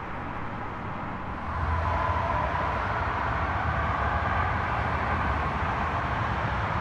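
Steady rumble of vehicle traffic, growing louder about a second and a half in and holding there.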